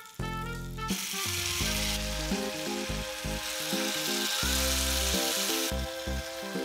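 Mushroom gravy poured onto a hot sizzling plate of pork steak, the sauce sizzling hard as it hits the plate from about a second in and dying down near the end.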